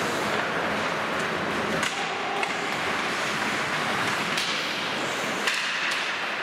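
Live ice hockey play in a rink: steady rink noise, broken by several sharp cracks of sticks and puck, about two seconds in, again near four and a half, and loudest near five and a half seconds.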